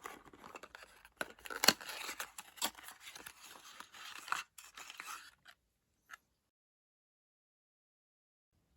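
Small product packaging being handled and opened by hand: scraping and crinkling with many sharp clicks, ending about five and a half seconds in, then one last click.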